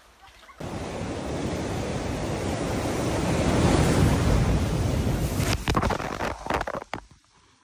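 Sea waves surging against rocks right below, swelling to a loud crash about four seconds in, with wind rumbling on the microphone. A few sharp splashes of spray follow before the sound falls away near the end.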